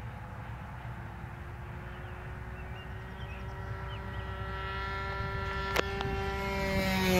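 Brand-new O.S. 55 AX two-stroke glow engine with a Pitts muffler, on a radio-control model airplane in flight during its break-in, running at a steady high pitch. It grows louder over the last few seconds as the plane approaches, with wind rumble underneath and a single sharp click about two-thirds through.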